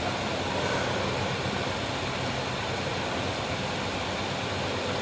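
Steady background noise with no voice: an even hiss with a low hum underneath, like a fan or air conditioning picked up by the microphone.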